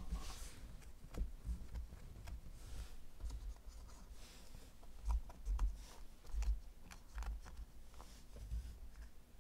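Felt-tip marker writing numbers on cardboard card boxes: a few short scratchy strokes, with soft low knocks from the boxes being handled.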